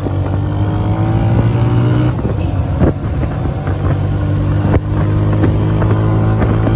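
125 cc motorcycle engine running steadily under way, its note rising slightly, with a short dip about two-thirds through.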